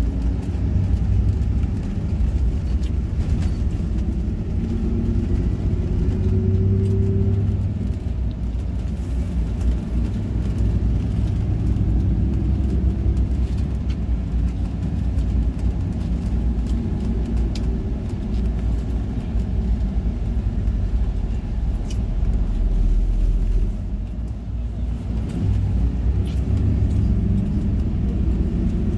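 Intercity coach's engine and tyre rumble heard from inside the cabin while under way. The engine note rises a few times as the bus picks up speed, with a brief easing off about three-quarters of the way through.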